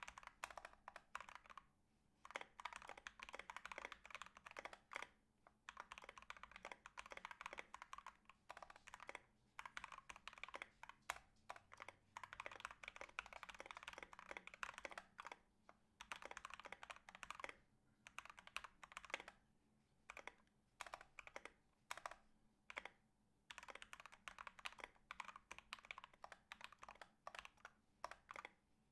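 Steady typing on a Drop Carina 60% mechanical keyboard with a brass plate, lubed and filmed Banana Split linear switches and MT3 ABS keycaps. The keystrokes come in quick runs broken by short pauses.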